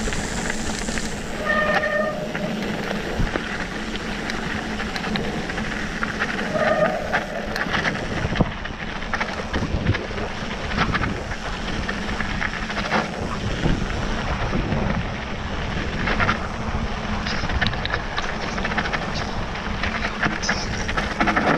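Mountain bike rolling fast down a rocky gravel track: tyres crunching and the bike rattling over loose stones, with a steady rush of noise and many small knocks. Two short squeals come about two seconds in and again near seven seconds.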